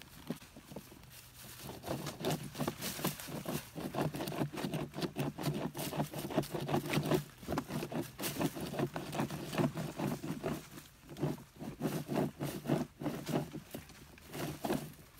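A stick pushed up inside a hollow log and twisted, scraping and knocking rapidly and unevenly against the wood, to twist out a squirrel hiding inside. It starts about a second and a half in and dies away near the end.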